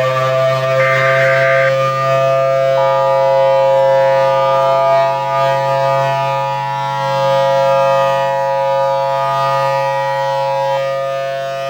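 Outdoor civil-defense warning siren holding a steady wail. Over it, a short Emergency Alert System data burst about a second in, then the two-tone EAS attention signal for about eight seconds, the alert that comes before a tornado warning broadcast.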